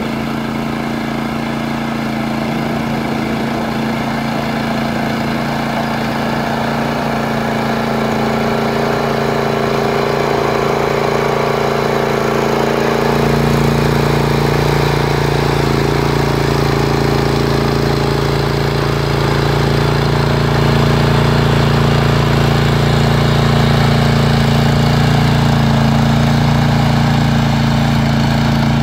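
Tracmaster 740 two-wheel tractor's petrol engine running at a steady speed, driving a 75 cm power harrow through the soil, with a constant engine note that grows slightly louder.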